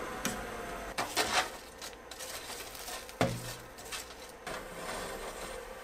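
Metal tongs clinking and scraping against a wire-mesh air fryer basket while French fries are stirred halfway through cooking, a series of light irregular clinks with one sharper knock about three seconds in.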